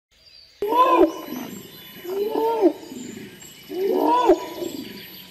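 Bornean orangutan calling: three loud calls, each rising and then falling in pitch, about one every one and a half seconds.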